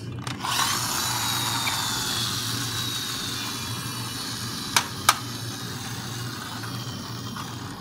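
Toy police bus's wheels and gearing whirring steadily with a faint high whine that slowly falls in pitch, and two sharp clicks about five seconds in.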